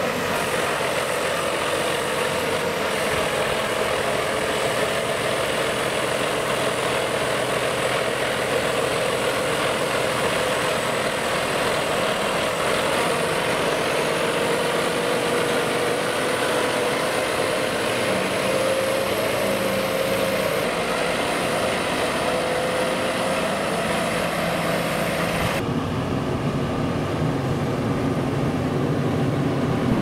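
Claas Xerion 4000 tractor's engine running steadily as it pushes chopped maize silage up the clamp with its front blade, with a steady whine over the engine note. Near the end the sound turns deeper.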